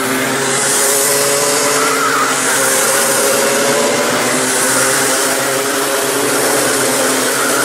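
Several racing kart engines running hard as a pack goes round the track. Their pitch wavers up and down, and the sound swells and fades again and again as karts pass.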